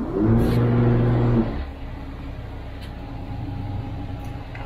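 A loud, steady pitched hum from a motor yacht's machinery comes in with a quick rise about a quarter-second in, holds for over a second, and cuts off. After it the yacht's engines keep up a low steady hum.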